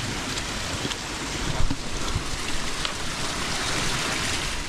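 A small stream rushing and splashing out of a pipe culvert under a path, a steady hiss of running water that grows louder toward the end.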